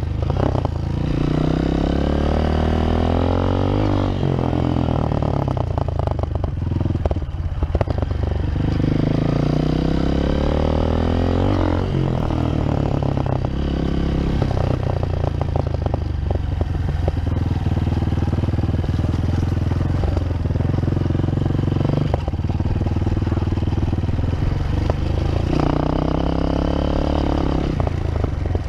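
Honda CRF230F dirt bike's single-cylinder four-stroke engine while being ridden, the revs climbing several times as it accelerates and dropping back as the throttle eases.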